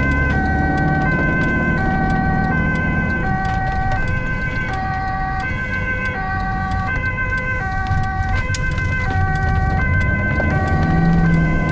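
Ambulance two-tone siren alternating steadily between a high and a low note, about one change every three-quarters of a second. The ambulance's engine runs under it and revs up near the end.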